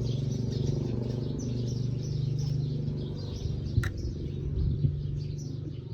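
Rapid, bird-like high chirps over a steady low hum, with a sharp click about four seconds in.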